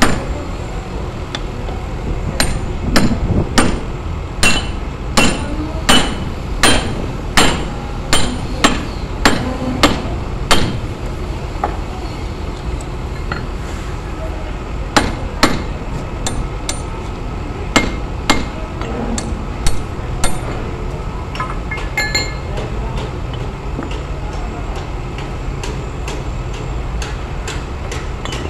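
Hammer blows on a steel punch against a Kenter shackle on heavy anchor chain, driving its locking pin: a run of sharp metallic strikes, about three every two seconds, for roughly the first ten seconds, then scattered blows with pauses between. A steady low rumble runs underneath.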